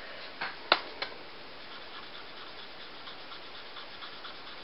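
A few light plastic clicks in the first second as a Stampin' Up Blendabilities alcohol marker is picked up and uncapped, the sharpest about two-thirds of a second in. Then the faint scratch of its tip colouring on cardstock.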